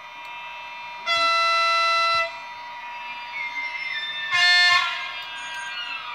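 ESU LokSound V4 decoder in an H0 ICE 3 model sounding the high-speed-train horn twice through its small loudspeaker: a blast of about a second, then a shorter one a little past four seconds. Beneath it runs the steady electric traction whine, with tones gliding in pitch as the model runs.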